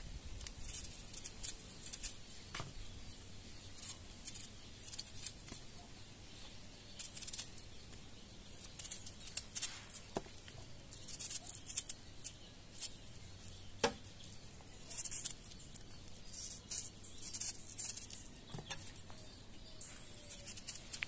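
Knife shaving the skin off a yellow yam: irregular short scraping strokes, with a few sharper clicks of the blade.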